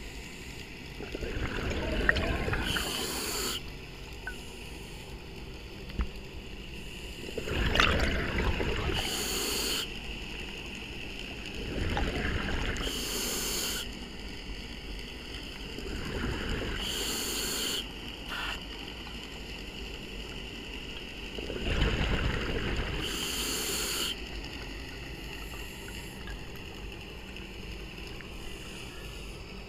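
Scuba diver breathing through a regulator underwater: about five breaths, roughly one every five seconds, each a rush of air and bubbling as the exhaled gas is vented.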